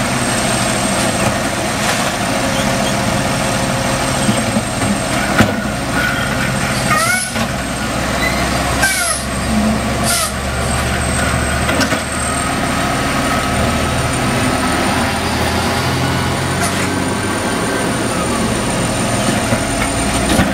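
Automated side-loader garbage truck, a Freightliner Condor, running its diesel engine while its hydraulic arm lifts and dumps curbside carts, the engine note rising and falling with the arm work. Several short hisses of air come from about five to ten seconds in.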